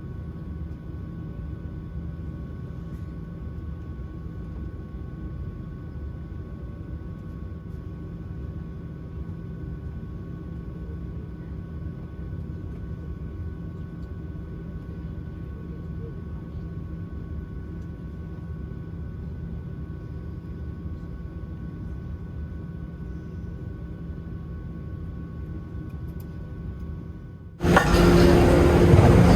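Steady low rumble of a Boeing 737-700 airliner heard from inside the cabin, with two faint steady tones above it. Near the end it cuts suddenly to a much louder, noisier rush.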